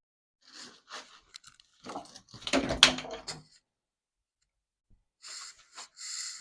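Handling noise from a camera being picked up and repositioned: scattered rustles and clicks, a louder clunk about three seconds in, then brief hissing rustles near the end.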